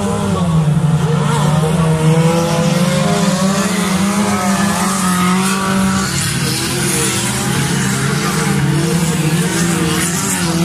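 Stock car engines racing on a dirt track, several cars at once, their revs rising and falling as they power through the corners.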